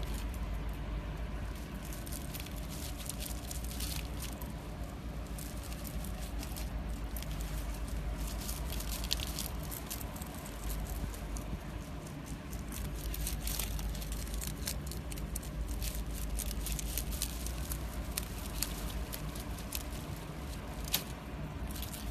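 Two rabbits chewing leafy greens: a run of quick, irregular crunching clicks over a steady low hum.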